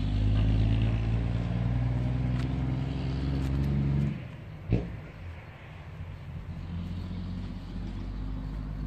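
An engine running steadily, cutting out about four seconds in, then a single sharp knock; a fainter steady hum carries on after it.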